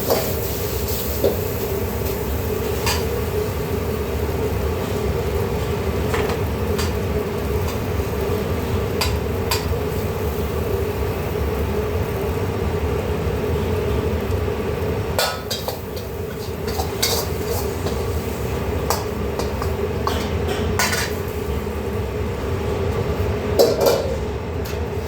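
Metal utensils clinking against cookware now and then, over a steady background hum.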